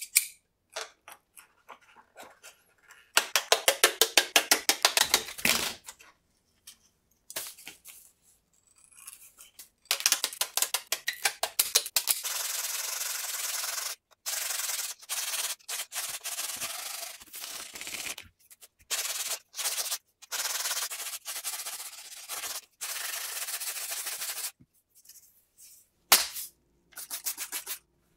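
Hand work on epoxy-coated carbon fiber strips: a few sharp scissor snips at first, then long stretches of rasping, rubbing strokes with short gaps between them. Near the end comes wet sanding with fine P2000 sandpaper in quick strokes.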